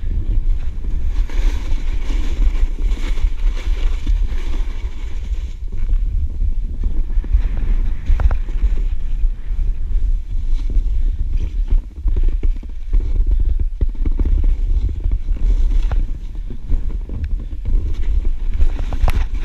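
Wind rumbling on a moving action camera's microphone during a fast descent through deep powder snow, over the steady hiss of the rider sliding through the snow, with a brief lull about twelve seconds in.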